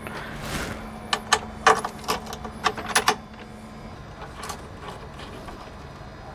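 Light metallic clicks and taps as steel nuts and washers are handled and threaded by hand onto the mounting bolts of an RV electric step's frame, about half a dozen in the first three seconds. After that only a steady low shop hum remains.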